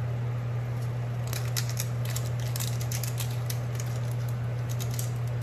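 Shrimp sizzling in a frying pan, with bursts of dense crunchy clicking from a hand seasoning grinder twisted over it, starting about a second in and again near the end. A steady low hum runs underneath.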